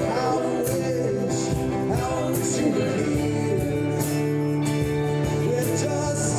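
Live band music: guitars playing over steady held chords, with singing.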